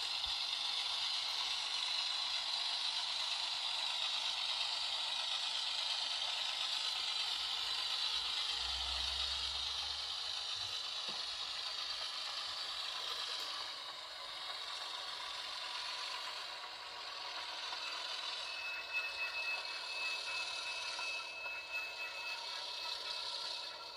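Model diesel switcher locomotive running along the layout track pulling freight cars: a steady whir and rattle of its motor, gears and wheels on the rails, with a few louder clicks near the end.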